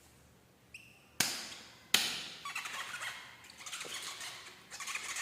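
Toy packaging being handled: two sharp clicks about a second and two seconds in, then irregular crinkling and small squeaks of plastic.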